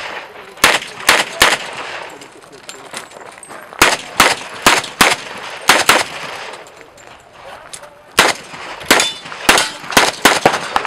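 Handgun shots fired in quick strings on a practical shooting course, each a sharp crack with a short echo. Three shots come in the first second and a half, a string of about six follows about four seconds in, and another string of about six comes in the last three seconds, with pauses between the strings while the shooter moves.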